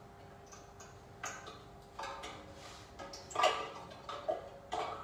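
Two automotive relays shaken together in the hand, their plastic cases clicking against each other in irregular ticks.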